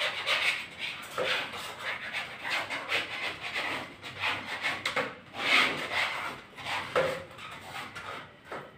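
Old wallpaper being scraped off a wall with a hand scraper: repeated, uneven rasping strokes against the wall, loudest about five and a half seconds in and dying away near the end.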